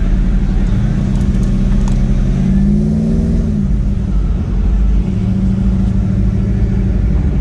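Car engine running with a deep rumble, revving up about two and a half seconds in and dropping back about a second later before running on steadily.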